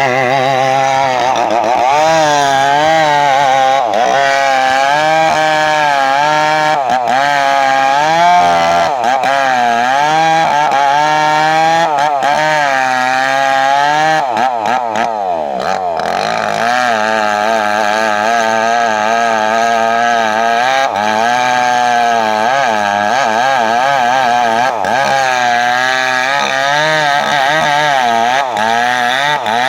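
Two-stroke chainsaw running at high revs while cutting teak, its engine pitch wavering up and down under load. About halfway through the revs sag, then pick up again.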